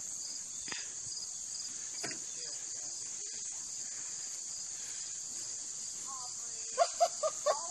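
Insects droning steadily in a high-pitched chorus, with a slow regular pulse on top. Near the end a person's voice cuts in with four short, loud sounds.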